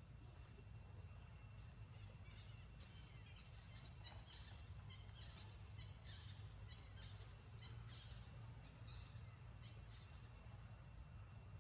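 Faint forest ambience: a steady high insect drone, with a flurry of short high chirps through the middle.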